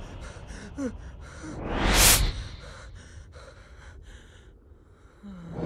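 A man breathing hard, with one loud, sharp gasp about two seconds in.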